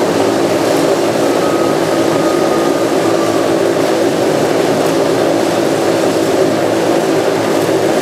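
Motorcycles riding inside a steel mesh globe of death, their engines running loud and steady without letup.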